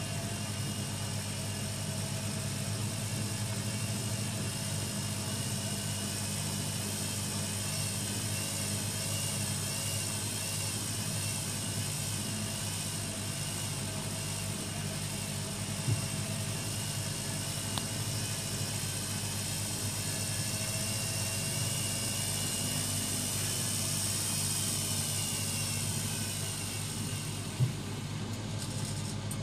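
AEG Lavamat 6410 washing machine running, a steady motor hum with high whining tones that waver. Two short clicks sound, one about halfway through and one near the end.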